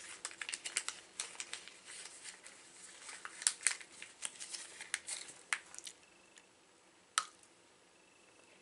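Wrapper of a small chocolate crinkling as it is unwrapped by hand, many quick crackles for about six seconds. A single sharp click follows about a second later.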